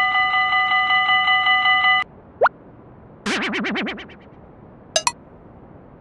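Railroad crossing warning bell ringing in a fast, steady repeating electronic clang, cutting off about two seconds in. Cartoon sound effects follow: a quick rising whistle, a short wobbling boing, and a brief double click near the end.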